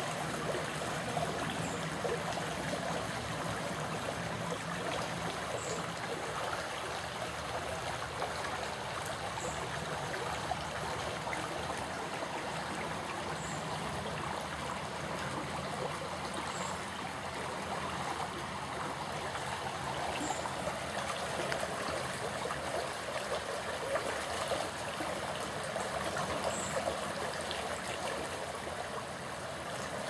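Steady rushing of running water, like a forest stream, with a faint high chirp every few seconds.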